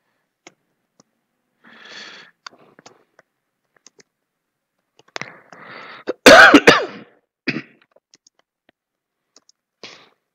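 A person coughs once, loudly, a little after the middle, with softer throat noises before it. Faint computer keyboard keys click here and there as text is typed.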